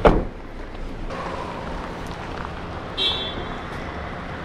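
A car door shuts with a loud thump, followed by the low hum of a car around the listener. About three seconds in there is a short, high electronic beep.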